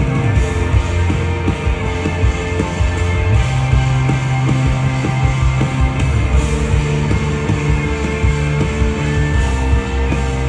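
Live rock band playing an instrumental passage with no vocals: drums hitting steadily under held bass and guitar notes.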